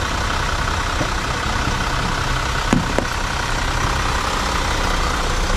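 Steady rush and low rumble of a motor vehicle running, with two short knocks about three seconds in.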